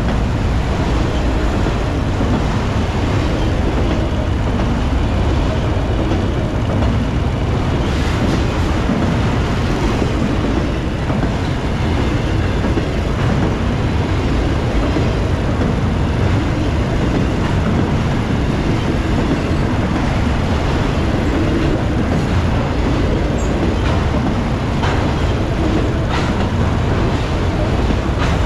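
Freight train rolling by at speed: a steady, loud rumble of wheels on rail, with a few faint clicks.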